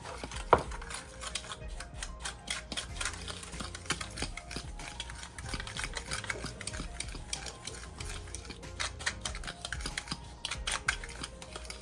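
A utensil stirring dry sugar, salt and cinnamon in a glass mixing bowl: quick, steady scraping and ticking against the glass, with one ringing clink about half a second in.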